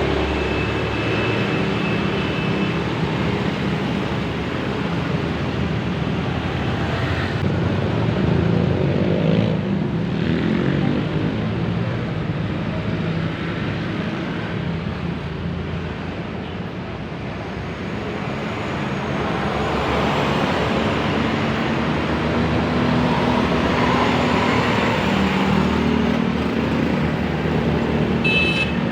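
Road traffic with buses passing: diesel engine hum and tyre noise swell and fade as vehicles go by, easing off a little past the middle. A brief high-pitched tone sounds just before the end.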